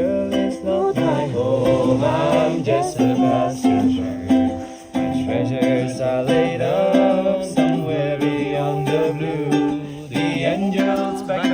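Background music led by plucked strings, ukulele or acoustic guitar, playing a steady melody.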